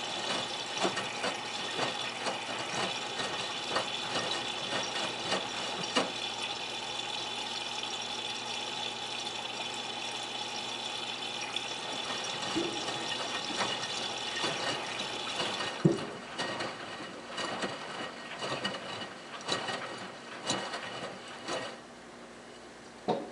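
Miele Touchtronic W3033 front-loading washing machine filling: water hisses steadily as it sprays into the turning drum, then stops about two-thirds of the way through. What follows is the slosh and soft thumps of wet laundry tumbling in the drum.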